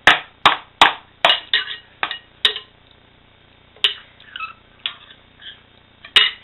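Metal spoon tapping and clinking against a ceramic cereal bowl: a quick run of sharp clinks, about two a second, then a few scattered single clinks.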